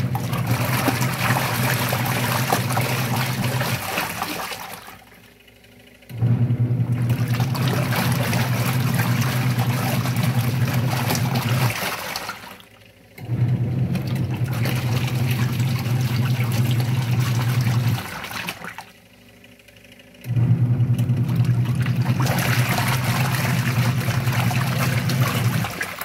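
American Home washing machine in its wash cycle: the motor hums and the wash action churns clothes through sudsy water in runs of about five or six seconds, stopping for a second or two between runs as the tub's swirl alternates direction.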